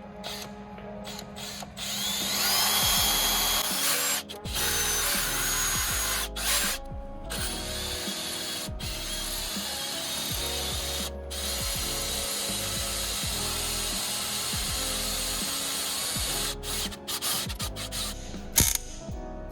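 Electric drill boring into a broken exhaust header bolt in an engine's cylinder head, running in long sustained stretches with short pauses, over background music.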